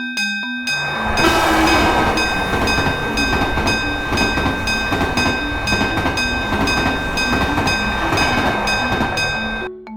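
A train passes through a railway crossing, its wheel-and-rail noise starting about a second in and cutting off abruptly near the end. Over it, the crossing's warning signal keeps up a repeating pattern of short chime-like tones.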